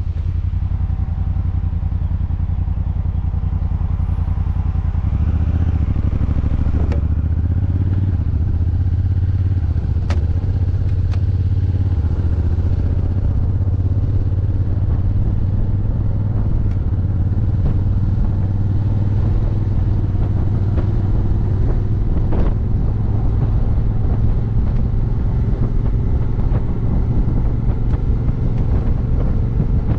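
Honda Africa Twin's parallel-twin engine running steadily while riding. The engine note changes about five seconds in. A few light knocks come through around a third of the way in and again past the middle.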